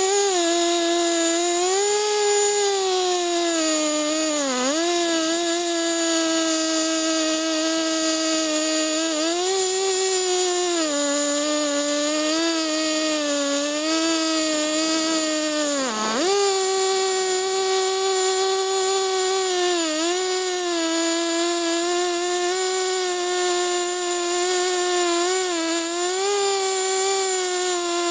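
Two-stroke chainsaw running at high revs and cutting, its engine pitch dipping briefly under load a few times, most deeply about 4 seconds and 16 seconds in.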